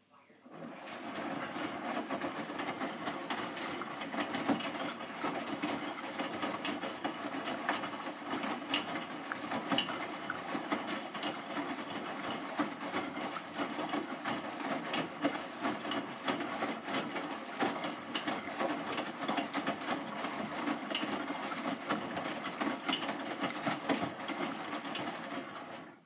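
Hotpoint NSWM 843C inverter-motor washing machine drum turning during the wash, tumbling a full load of wet laundry through soapy water with steady sloshing and clattering. It starts up about half a second in and stops abruptly at the end, one turning spell of the wash cycle.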